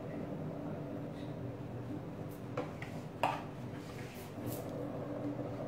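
Palette knife working whipped cream on a cake turntable: faint scraping with a few light clicks of the metal blade about halfway through, over a steady room hum.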